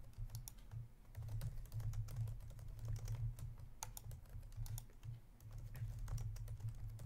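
Typing on a computer keyboard: irregular clusters of keystroke clicks, over a steady low hum.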